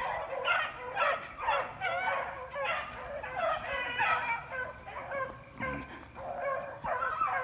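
A pack of beagles in full cry running a rabbit: several hounds baying over one another in quick, repeated cries, two or three a second.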